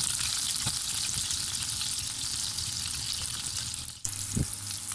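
Marinated chicken pieces shallow-frying in butter in a pan: a steady sizzle, which briefly breaks off about four seconds in.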